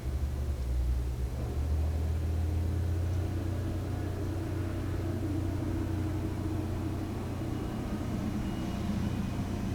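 Garbage truck engine running outside, a low steady rumble that builds about a second in and shakes the house.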